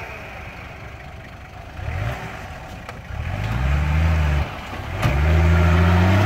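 UAZ off-road 4x4's engine revving under load as it crawls through mud: quiet for the first few seconds, rising about three seconds in, easing off briefly, then pulling louder and steadier near the end.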